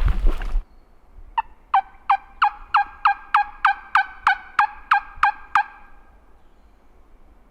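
A series of about thirteen wild turkey yelps, evenly spaced at about three a second, each note dropping sharply in pitch. A brief noise comes just before them.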